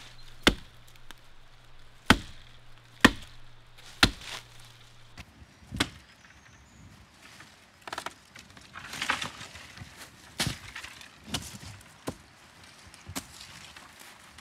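An axe chops into a chestnut sapling: five hard strokes, roughly one a second, in the first six seconds, then lighter, irregular chops mixed with the rustle of branches and dry leaves.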